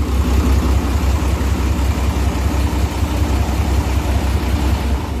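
Isuzu 6BG1 naturally aspirated inline-six diesel engine running steadily, with an even, low throb.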